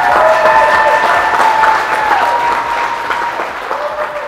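Crowd of guests applauding and cheering, with long whoops rising and falling over the clapping, slowly dying down toward the end.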